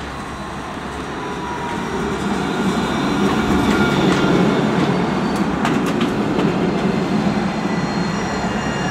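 Alstom Citadis 302 tram running past close by, its rumble of wheels on rail growing louder over the first four seconds and then holding, with faint high steady tones and a few sharp clicks about five to six seconds in.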